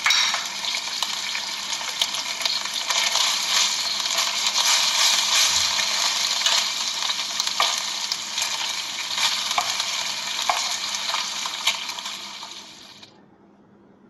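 Drops of gram-flour batter frying in hot oil for boondi: a steady sizzling hiss with many small crackles, fading away near the end.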